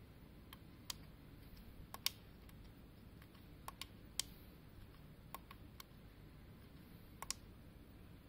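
Small slide switches and tactile push buttons on an FPGA development board clicking as a password is keyed in: about a dozen sharp clicks at irregular intervals, several in quick pairs.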